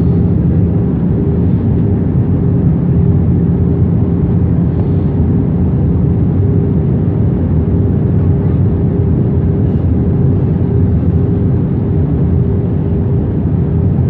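Jet airliner cabin noise in flight, heard from inside the cabin: a loud, steady rumble of engines and airflow with a constant hum running through it.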